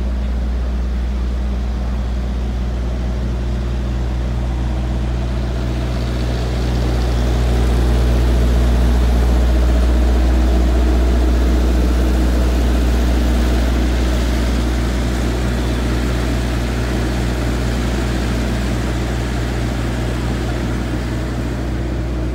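Parked ice cream truck's motor running with a steady, low hum and a broad hiss above it. It grows louder for several seconds near the middle.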